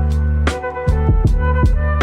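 Background music: a mellow lo-fi hip-hop beat with sustained chords over a steady drum pattern.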